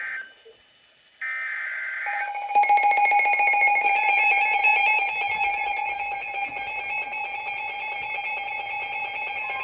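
Emergency Alert System transmission: two short bursts of SAME header data noise, then a long, steady attention tone from about two seconds in. The alert codes a severe thunderstorm watch (SVA).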